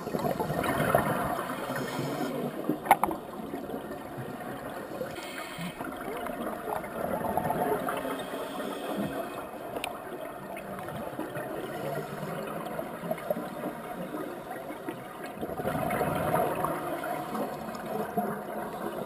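Underwater bubbling and gurgling of a scuba diver's exhaled air, swelling louder every several seconds with each breath, with two sharp clicks several seconds apart.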